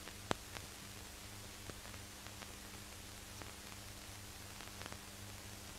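Faint steady hiss and low hum with scattered crackles and pops, a sharp pop about a third of a second in and a louder one at the end: the surface noise of an old archival film soundtrack with no speech or music on it.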